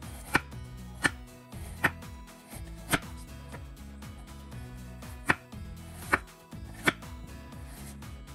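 Chef's knife slicing a carrot thinly on a bamboo cutting board: seven sharp knocks of the blade striking the board at an uneven pace, with a pause of about two seconds in the middle.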